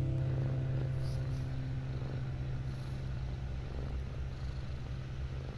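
Orange tabby cat purring steadily, a low, gently pulsing rumble. A guitar chord from the background music fades away in the first second or two.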